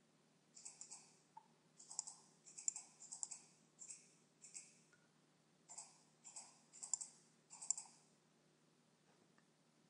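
Computer mouse button clicking about a dozen times in three short runs, each click a sharp press-and-release, over a faint steady hum.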